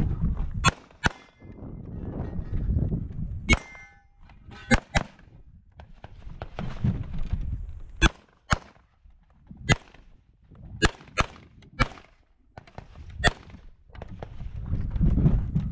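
A string of Open-division 9mm major pistol shots, fired singly and in quick pairs, about a dozen in all. Steel targets ring briefly after hits about a second in and again at about three and a half seconds. Between shots there is a low rumble of wind and movement on the microphone.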